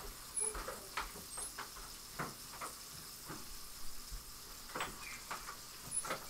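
Faint, scattered knocks and clicks of household handling, about ten in all, with a few brief high squeaks among them.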